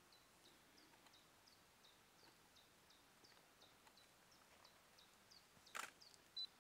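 Quiet outdoor ambience with a small animal's faint, high, short chirp repeated about three times a second. Near the end there is a single sharp click, then a brief high peep.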